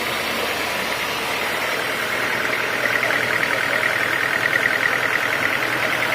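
Sawmill saw machinery running steadily. About two and a half seconds in, a louder, high fluttering whine rises over it.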